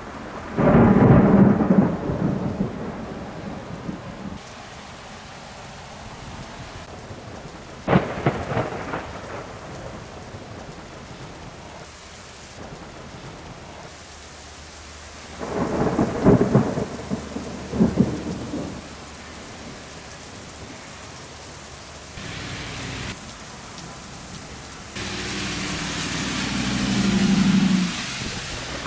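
Thunder rolling four times, about a second in, at about 8 s, and twice more in the middle, over steady rain. The rain grows heavier to a loud rush near the end.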